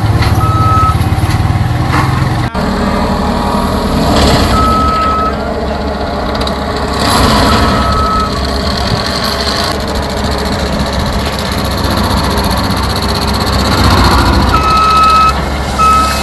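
New Holland skid steer's engine running steadily, with its backup alarm beeping in short spells as it reverses.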